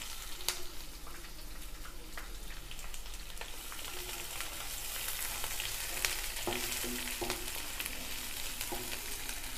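Chopped onions and green chillies sizzling in hot oil in a nonstick kadai, stirred with a spatula that scrapes and ticks against the pan now and then.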